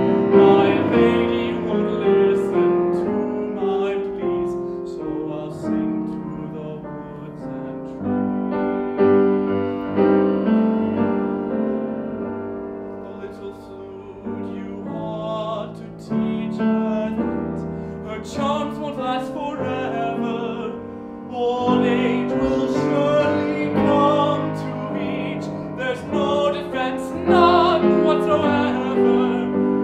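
Piano accompanying a male singer in a classical, operatic style. The voice sings with vibrato, and there is a quieter passage for piano alone about halfway through.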